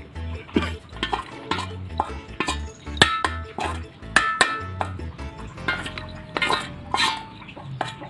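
A metal spoon scraping and clinking against a metal bowl as food is scraped out onto a plate, with several sharp clinks that ring briefly. Background music runs underneath.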